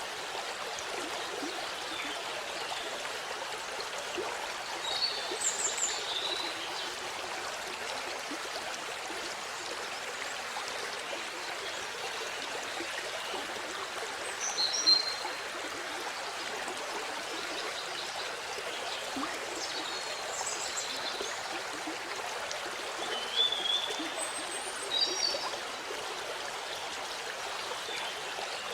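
Waterfall: a steady, even rush of falling water. A few brief high chirps sound over it about 6, 15, 21, 23 and 25 seconds in.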